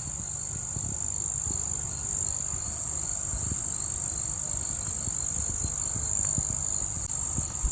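Steady background noise: a constant high-pitched whine over a low rumble, with a few faint clicks.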